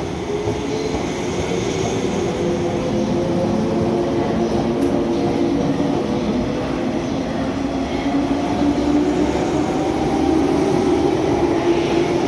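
185 series electric train pulling away from a platform, its MT54 traction motors giving a slowly rising whine over the rumble of the wheels as it gathers speed.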